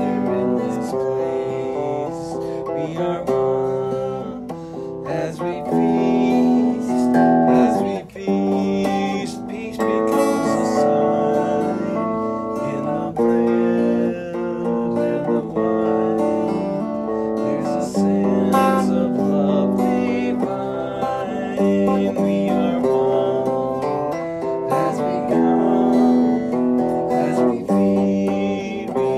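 A hymn being sung with instrumental accompaniment, a steady flow of held, changing notes.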